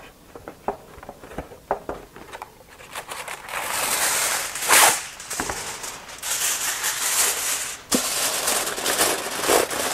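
Aluminium foil crinkling as a sheet is pulled off the roll and pressed down over a disposable foil roasting pan, after a few light clicks in the first seconds; the crinkling starts about three seconds in and is loudest around five seconds.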